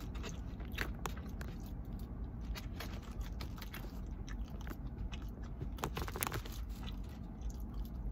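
Close-up chewing of broccoli beef and rice: irregular soft crunches and wet mouth clicks, over a steady low rumble.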